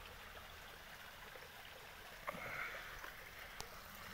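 Faint steady outdoor hiss with two soft clicks, one a little past two seconds in and a sharper one about three and a half seconds in.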